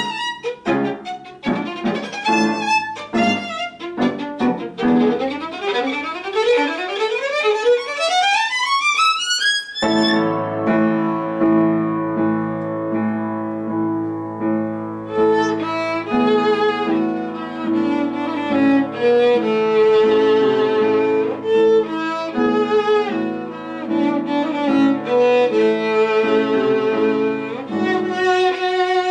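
Solo violin playing fast rising runs with piano accompaniment. About ten seconds in, the music changes suddenly to held notes and chords, and the violin then plays a sustained melody with vibrato.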